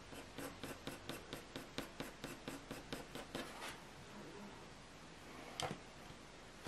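Graphite pencil flicking short strokes on hot-pressed watercolour paper, about five a second, which stop after three and a half seconds; a single tap follows near the end.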